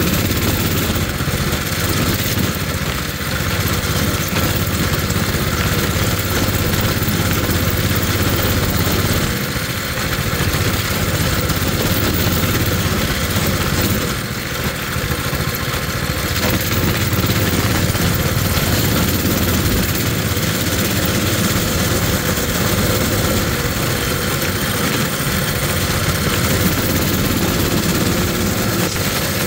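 Coleman mini bike's small single-cylinder four-stroke engine running steadily as the bike rides along, easing off briefly twice, about ten and fourteen seconds in.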